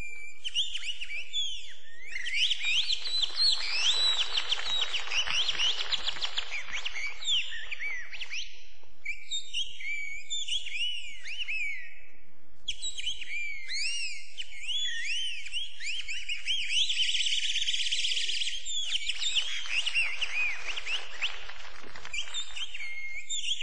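Bird-like whistled calls: chirps and warbles in quick rising and falling sweeps, with two stretches of busier, fluttering chatter, about two seconds in and again near the end.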